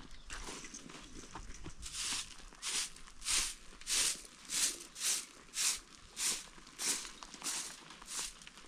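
A hand broom of twigs sweeping dry, dusty dirt, making an even run of brisk scratchy swishes about one every 0.6 seconds, starting about two seconds in after some fainter scuffing.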